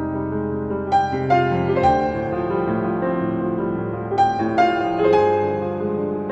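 Background piano music, a slow line of notes struck every second or so and left to ring.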